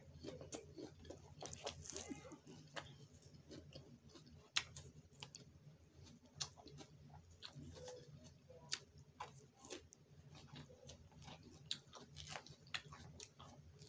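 Faint close-up chewing of a mouthful of lettuce salad, with scattered sharp clicks and crunches as the plastic fork works in the plastic salad bowl.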